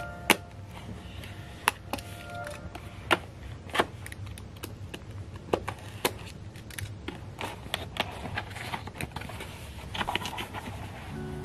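A utility knife cutting through the seal of a cardboard box: scraping and irregular sharp clicks as the blade drags and catches. About ten seconds in comes a rustle of cardboard as the box lid is lifted open.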